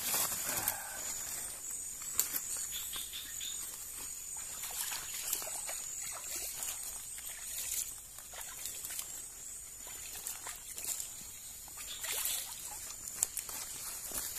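Water trickling and dripping off the netting of a collapsible umbrella fish trap freshly lifted from the water, with scattered rustles of the mesh against leaf litter. A steady high-pitched insect drone runs underneath.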